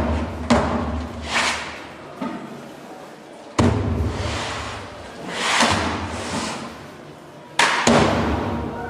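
Sound-art soundtrack of the installation played over loudspeakers: sudden heavy thuds every few seconds, each trailing off in a long echo, with swelling rushes of noise between them and a doubled thud near the end.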